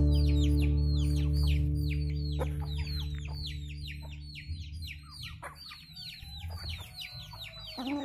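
Chicks peeping: a rapid run of short, high, falling chirps, several a second. Acoustic guitar music fades out under them over the first half.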